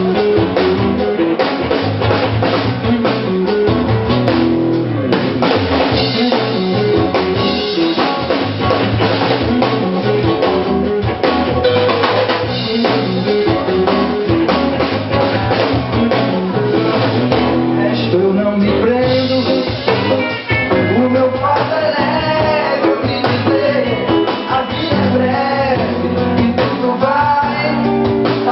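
Live pop-rock band playing an instrumental passage, driven by a drum kit with guitar, with a melodic line gliding up and down over the second half.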